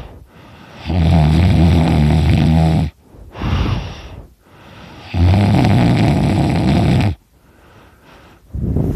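A sleeping person snoring loudly. There are two long snores of about two seconds each, about four seconds apart, with a shorter breathy breath between them.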